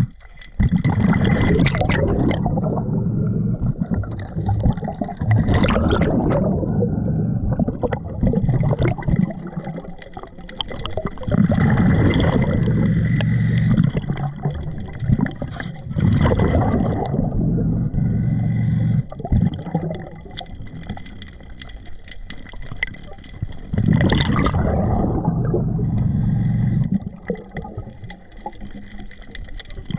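Diver breathing underwater through a Blu3 Nomad surface-supplied regulator: several long, gurgling exhalations of bubbles, each lasting one to several seconds, with quieter gaps between them for the inhales.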